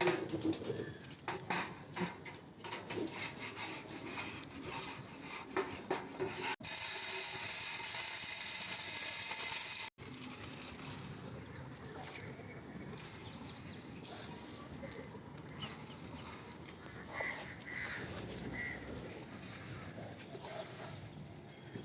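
Scraping, rubbing and clattering as a dirty pigeon feed tray is cleaned, with many quick clicks. About a third of the way in, a steady hiss starts and stops abruptly after about three seconds.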